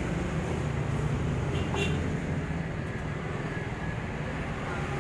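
Small air compressor running with a steady drone. One sharp click about two seconds in.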